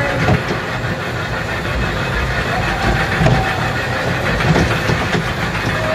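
Kiddie train ride running along its track: a steady rumble of the small train's wheels and motor.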